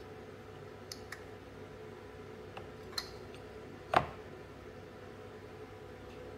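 Handling noise from an MPPT solar charge controller being turned over by hand against a tabletop: a few light clicks and taps, with one louder knock about four seconds in, over a faint steady hum.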